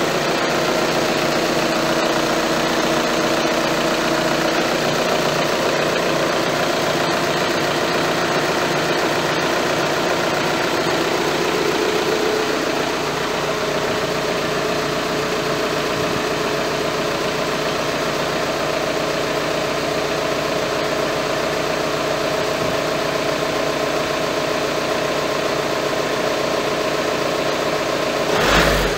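Škoda TDI turbodiesel engine idling steadily. A brief, louder burst comes near the end.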